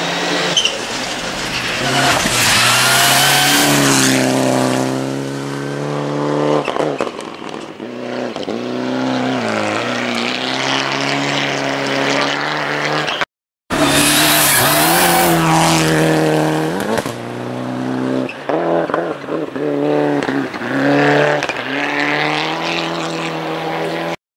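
Rally car engines revving hard and easing off again and again, their pitch rising and falling. The sound breaks off for a moment about halfway through, and a second car's engine takes over.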